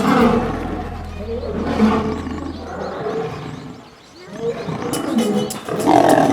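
A lion roaring, played as a sound effect for a toy lion. It fades away about four seconds in and starts again near the end.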